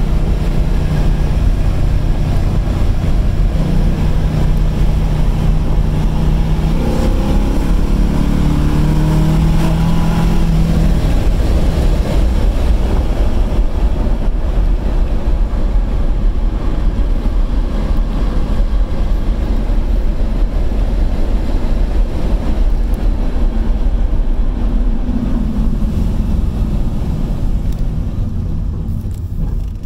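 LS1 V8 of a 1969 Camaro restomod driving, heard from the cabin with the windows down over heavy wind and road noise. The engine note climbs as the car accelerates in the first ten seconds or so, then sinks under the wind, and the sound eases off near the end as the car slows.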